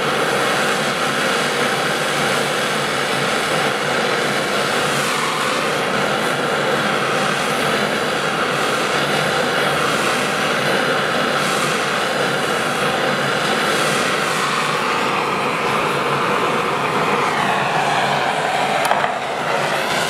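A hand-held gas torch burns with a steady hiss as its flame heats the radiator core so that solder will melt into a pinhole leak.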